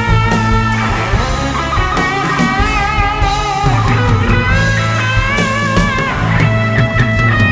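Live psychedelic rock band playing: an electric guitar lead with bent, wavering notes over bass and drums.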